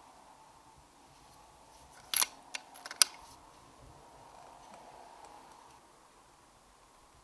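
Brocock Concept XR air rifle's action: a quick cluster of sharp metallic clicks about two seconds in, followed by a couple of lighter clicks and one loud clack about a second later.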